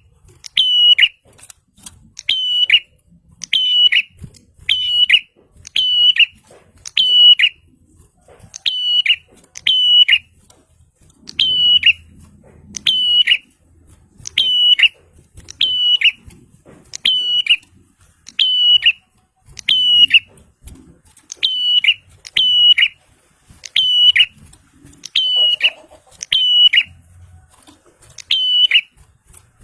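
Prinia (prenjak) calling over and over: a loud, sharp, high call about once a second, each note bending downward in pitch, kept up in an unbroken run.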